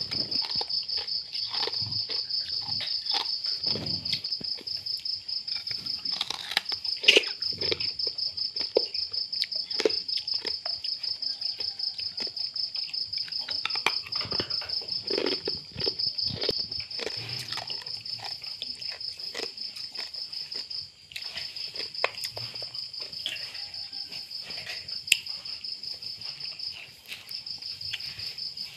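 Crickets chirping in a fast, even, high-pitched trill that breaks off briefly twice in the second half. Over it come scattered short clicks and smacks of puppies chewing and lapping rice from a plastic dish.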